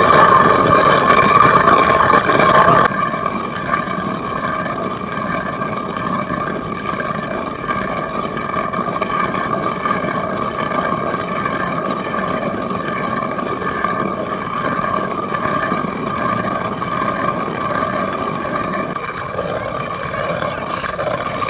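Hand-turned stone quern grinding dried maize kernels into meal: a steady rumbling grind of stone on stone. It is louder for about the first three seconds, then continues at a lower level.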